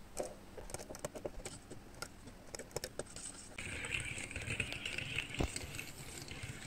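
Push-down (pump) whisk with a stainless steel handle stirring runny batter in a stainless steel bowl. At first there are scattered light clicks and taps of metal on metal. About three and a half seconds in, a continuous rattling whir starts as the whisk is pumped and spins.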